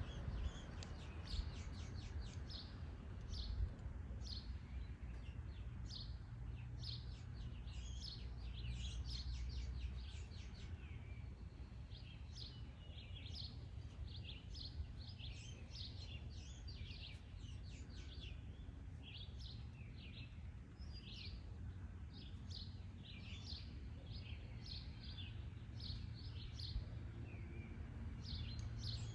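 Rapid high-pitched chirping, short calls repeating a few times a second, over a steady low hum.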